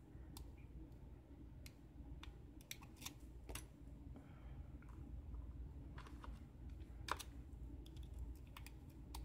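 Faint, irregular small clicks of a steel hook pick working the pin stack of a 5-pin Abus euro cylinder under tension during single pin picking.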